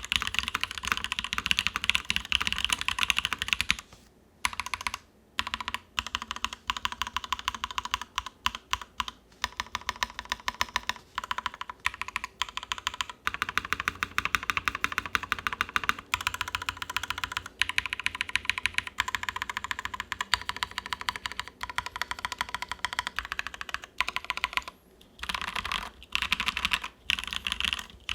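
Fast, steady typing on a mechanical keyboard: a KBDFans Endless-80 with lubed Durock POM linear switches, an aluminum top-mount plate and EPBT keycaps, the keystrokes coming in quick runs with a few brief pauses.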